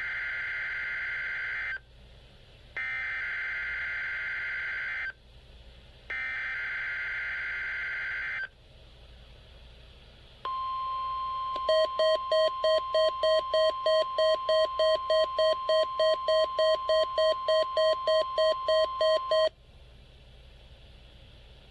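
NOAA Weather Radio emergency alert signalling: three short bursts of screeching digital SAME header data, a pause, then the steady 1050 Hz warning alarm tone. About a second after the tone starts, the Midland WR100 receiver's own alert joins in with rapid beeps, about three a second, set off by the tone. Both stop together after about eight seconds.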